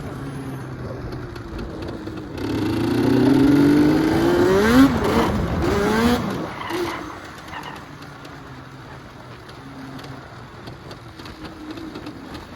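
Vehicle engine running, then revved hard with its pitch climbing several times a few seconds in, before it falls back to quieter, steady running.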